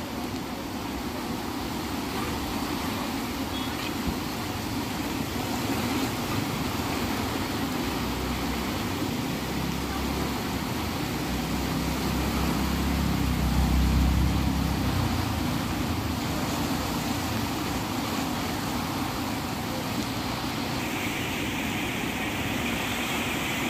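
Steady rushing roar of a muddy river in full flood, turbulent water churning past. A deeper rumble swells around the middle, and the hiss of the water grows brighter near the end.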